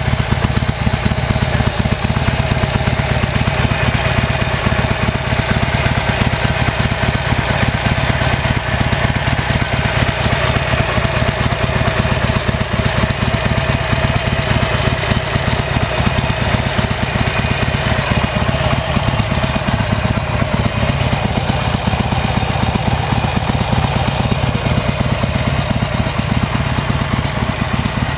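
2009 Harley-Davidson Sportster 1200's air-cooled V-twin engine idling steadily, with no change in revs.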